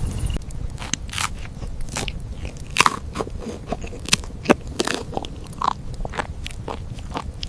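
Crisp, irregular crunching of bites into crusty bread and chewing, a few crackling crunches a second.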